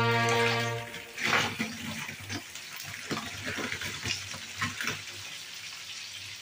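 Potato fries poured into a wok of hot oil, sizzling as they hit: a sharp hiss about a second in, then a steady sizzle with scattered pops. A held note of music ends just before the sizzle starts.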